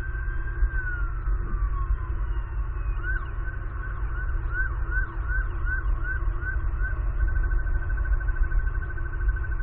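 Emergency vehicle siren: a slow wail that falls away early, then a yelp of quick rising-and-falling sweeps, about two and a half a second, from about three seconds in. Near the end it switches to a much faster warble. Underneath is a steady low rumble.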